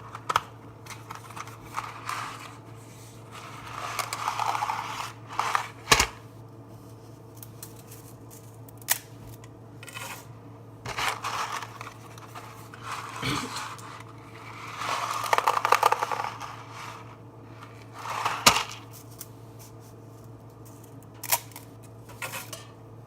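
Dry fettuccine being handled and snapped in half: scattered bursts of crackling and rustling with several sharp snaps.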